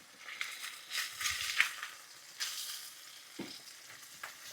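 Haddock fillets sizzling in hot olive oil in a skillet after being flipped: a steady hiss with scattered crackles and pops, and a few clicks and scrapes of a utensil against the pan.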